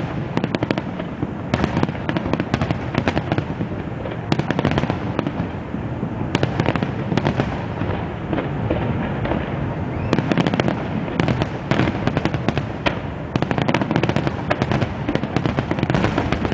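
Fireworks display: a dense barrage of sharp bangs and crackles in quick succession over a continuous low rumble, with no let-up.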